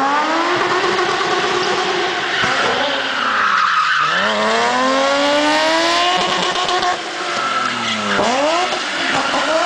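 Drift car's engine held at high revs through a burnout, its pitch dropping sharply and climbing again twice, over the hiss and squeal of spinning, smoking rear tyres.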